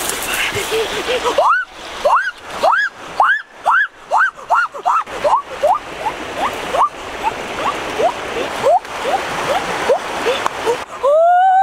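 A bird calling a rapid series of short rising notes that fade as they go, then one longer note near the end that rises and falls, over the steady rush of stream water.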